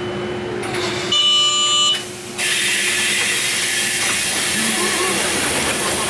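Tram door buzzer sounding once for about a second, followed about half a second later by a loud, steady hiss of compressed air from the older tram car's pneumatic door gear as the doors open at the stop.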